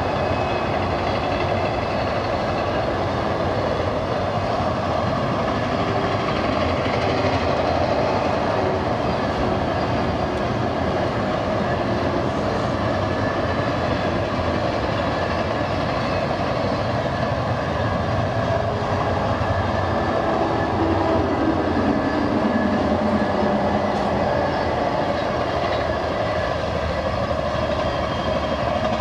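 Intermodal freight train cars rolling past steadily on the BNSF main line, a continuous even rumble of wheels on rail.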